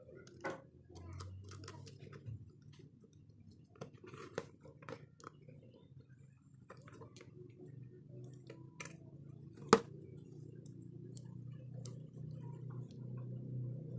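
Scattered small clicks and taps, with one sharp click about ten seconds in, over a low steady hum that grows louder near the end.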